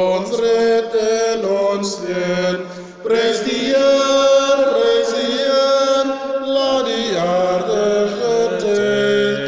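Voices singing the closing hymn of a Catholic Mass in a slow melody of held notes, with a brief break between phrases about three seconds in.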